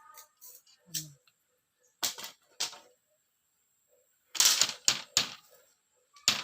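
Sharp knocks and cracks of a tool striking bamboo: two single strikes, then a quick run of about four, and one more near the end.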